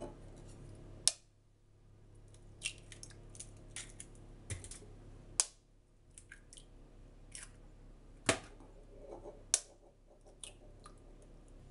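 Raw eggs being cracked open with a kitchen knife over a glass bowl: an irregular series of sharp clicks and taps as the blade strikes and breaks the shells.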